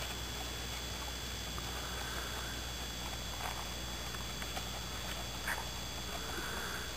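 Faint, soft hoofbeats of a horse trotting on sand footing: a few light, irregular ticks over a steady hiss.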